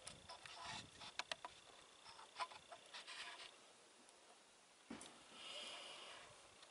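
Faint rustling and a quick run of small clicks, then a single dull thump about five seconds in, followed by a soft hiss.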